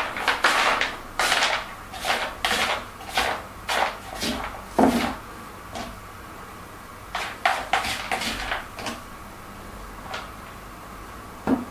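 Rummaging through small hard objects: a quick run of knocks, scrapes and rustles for about five seconds as makeup items are picked up and set down, then a few scattered clicks.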